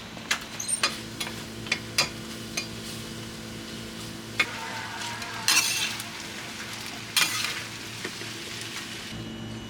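Organ meat frying on a flat iron griddle: a steady sizzle with sharp clicks of metal spatulas, and two louder surges of hiss about five and a half and seven seconds in.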